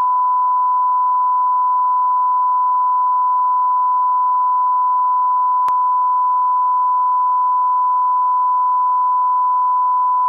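A steady electronic test tone: one pure pitch held unbroken and level, with a faint click about six seconds in.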